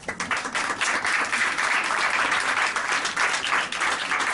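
Audience applauding, many hands clapping at once. The clapping thickens within the first second and then holds steady.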